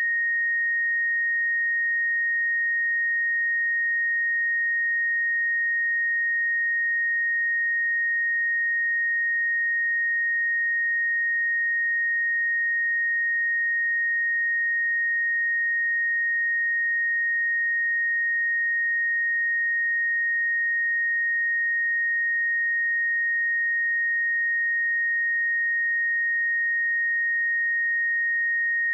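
A pure 1864 Hz sine-wave test tone held steady at one pitch and level, a single high whistle-like note with no overtones.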